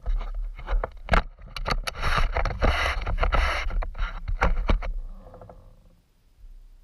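Handling noise from the camera being gripped and its mount adjusted: a run of sharp clicks and knocks with rubbing and scraping, loud and close to the microphone, dying away about five seconds in.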